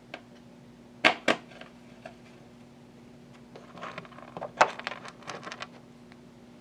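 Sharp clicks and light rattling from small tools and parts handled at a workbench: two sharp clicks about a second in, then a quick cluster of clicks and rattles a few seconds later.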